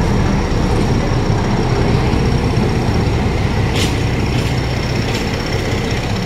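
Indian Railways WDS-6 diesel shunting locomotive rumbling slowly past at close range, drawing passenger coaches along the platform. It is a steady low engine and rolling rumble, with a few brief sharp high-pitched sounds from the train over it.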